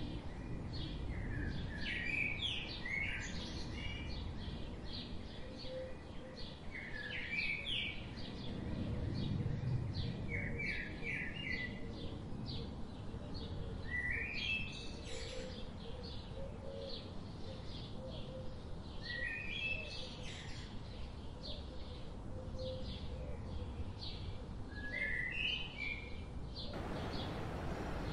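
Songbirds singing: a short rising phrase repeated every few seconds among fainter chirps, over a low outdoor rumble. Near the end the background hiss suddenly gets louder.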